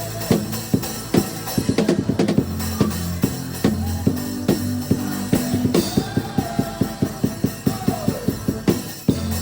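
Drum kit played along with a backing track that carries a steady bass line: regular kick and snare strokes, two runs of rapid strokes, and a cymbal crash about six seconds in.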